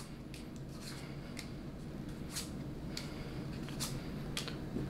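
Pokémon trading cards being handled: cards slid off a hand-held stack one at a time and flicked down onto the table, giving short papery snaps and swishes every half second to a second.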